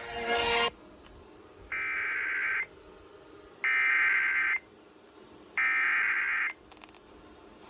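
Three EAS SAME header data bursts from a NOAA Weather Radio broadcast, each a raspy digital screech about a second long with a second's pause between, the coded header that opens a weather alert.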